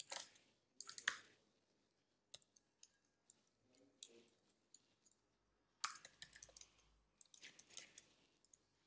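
Faint computer keyboard typing: scattered single key clicks and short quick runs of keystrokes, busiest in the second half.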